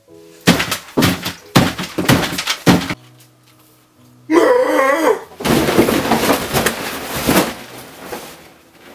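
A run of five loud thumps, then a short wavering cry, then about three seconds of loud crashing and clattering as a table set with plates and plastic cups is knocked over.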